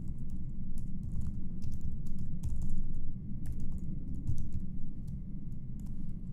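Typing on a computer keyboard: irregular keystroke clicks as code is entered, over a steady low background hum.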